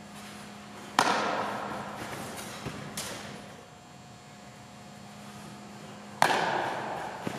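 Two sharp cracks of a baseball impact, about five seconds apart, each ringing on through the echo of a large indoor training hall, with a fainter knock between them.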